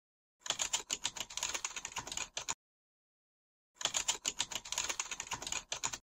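Rapid computer-keyboard typing sound effect in two runs of about two seconds each, separated by a pause of just over a second.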